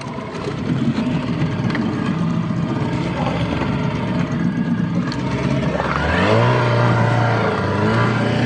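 Fishing boat's engine running steadily, then revving up about six seconds in, dipping briefly and picking up again near the end, while the net is hauled aboard.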